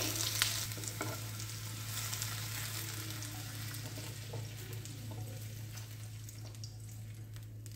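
Hot oil and stir-fried capsicum and onion sizzling in a nonstick pan, the sizzle slowly dying away as the pan comes off the heat, with a few light knocks of the spatula about the first second as the vegetables are scraped out.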